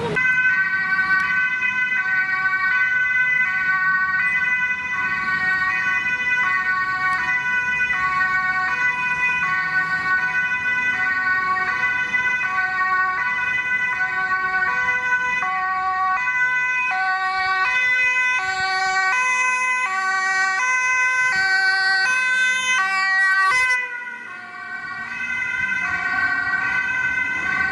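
Dutch ambulance's two-tone siren sounding, stepping between a high and a low note about once a second, then switching faster, about twice a second, from midway on. A sudden break near the end briefly drops the sound before the siren carries on.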